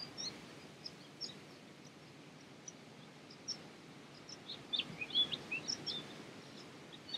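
Faint outdoor ambience: a steady low background noise with short, high bird chirps scattered through, busiest about two-thirds of the way in.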